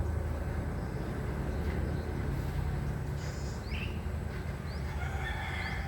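Steady low background rumble. A few faint, short, rising bird chirps come in the second half.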